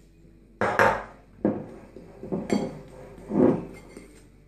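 Metal fork scraping and clinking against a glass bowl, in about four separate strokes, as it stirs dry flour and semolina together.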